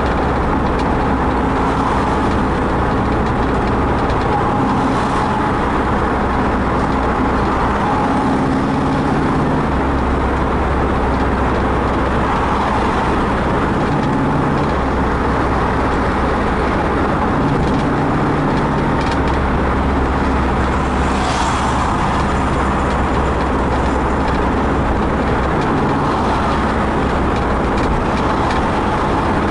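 Steady road and engine noise of a car driving, heard from inside the cabin, with a low hum that comes and goes every few seconds.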